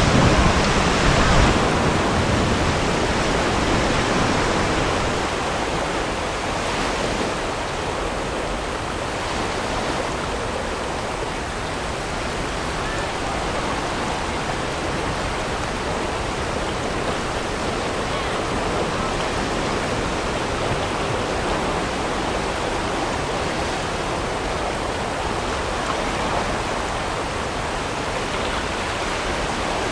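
Whitewater rapids rushing over and around river boulders in a steady roar, a little louder in the first couple of seconds.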